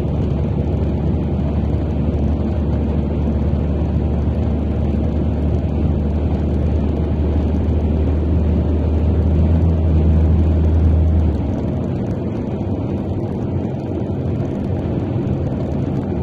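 Car driving at road speed, heard from inside the cabin: a steady low rumble of engine and tyres, which eases off a little about eleven seconds in.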